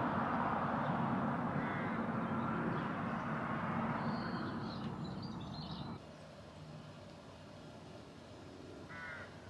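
Crows cawing a few short times over steady outdoor background noise, which drops sharply about six seconds in.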